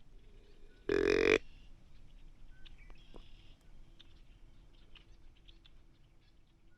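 A hand-held deer call blown once, about a second in: a single short, buzzy call lasting about half a second. Faint small ticks and chirps fill the rest.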